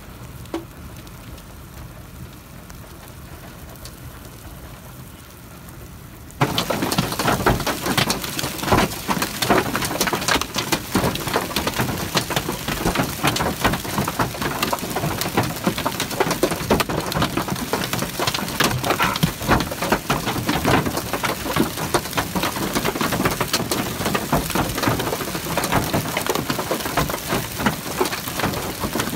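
Large hail, up to golf-ball size, hitting a vehicle's body and windshield in a dense, irregular clatter of hard hits. It starts suddenly about six seconds in, after a quieter stretch of low background noise.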